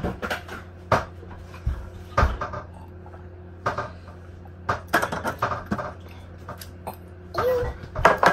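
Dishes and a mug being handled in a kitchen: about eight separate knocks and clatters spread out, over a steady low hum.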